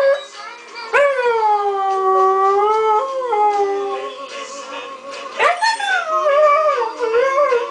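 Husky puppy howling along to a TV theme song: two long howls, the first rising sharply about a second in and then held for about three seconds, the second starting near the middle with a wavering pitch.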